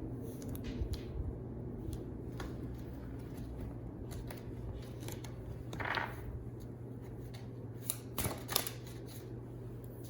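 Tarot cards being handled: scattered soft flicks and clicks with a brief swish about six seconds in, over a steady low hum.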